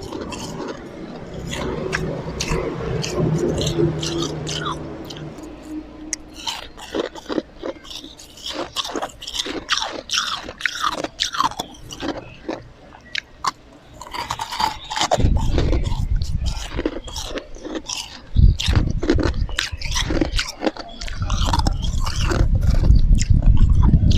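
Close-miked chewing and crunching of ice: many irregular sharp cracks and crunches. About fifteen seconds in, a heavy low rumble joins the crunching and grows louder near the end.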